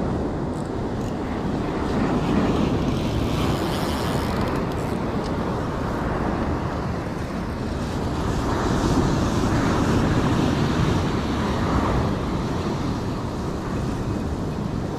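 Rough sea surf breaking and washing on the shore, a steady rumble that swells and eases every few seconds, with wind buffeting the microphone.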